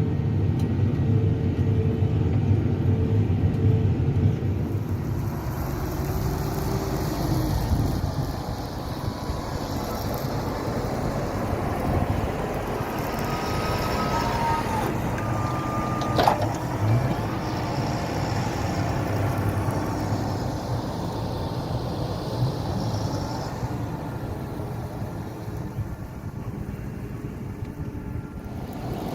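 Fendt tractor engine running steadily under load while pulling a four-furrow plough, its deep drone easing slightly about eight seconds in. There is a single sharp knock about halfway through.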